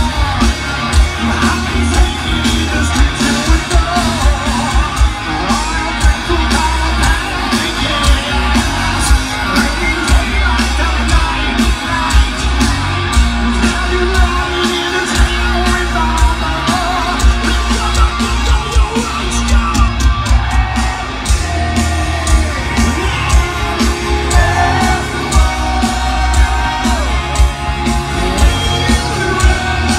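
Heavy metal band playing live through a large outdoor PA, heard from within the crowd: distorted guitars, a steady pounding drum beat and a heavy low end, with a lead vocal over it.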